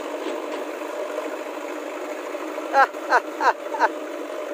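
Diesel engines of a JCB 3DX backhoe loader and a tractor running steadily. About three seconds in, four short calls falling in pitch sound in quick succession, louder than the engines.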